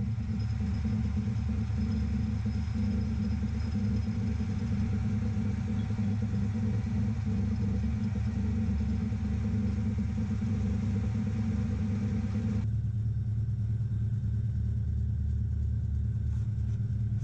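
Metal lathe running steadily, turning down the end of a steel bar held in a collet chuck, a constant mechanical hum with a few steady tones. About thirteen seconds in, the higher-pitched part of the sound stops and only a low hum remains.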